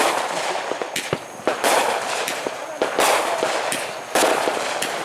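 Fireworks going off: about five sharp bangs, each followed by a crackling tail that dies away over about a second.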